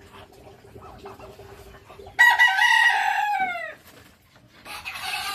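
Rooster crowing twice. A loud crow comes about two seconds in and falls away at its end, and a second crow starts near the end.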